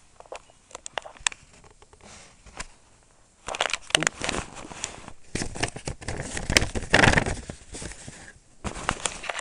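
Packaging and contents being handled close to the microphone: rustling and crinkling with scattered clicks. It starts sparse, becomes dense from about three and a half seconds in until about eight seconds, and comes back in a short burst near the end.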